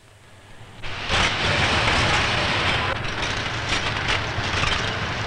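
Linotype typesetting machine running: a dense mechanical clatter and rattle over a low rumble, fading in during the first second.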